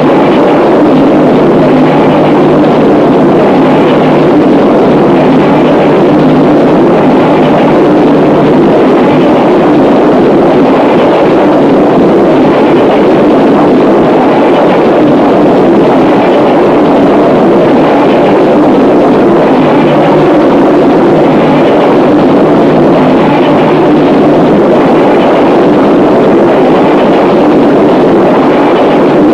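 Harsh noise music: a loud, dense, unbroken wall of distorted noise. A steady low drone underneath fades out about a third of the way in.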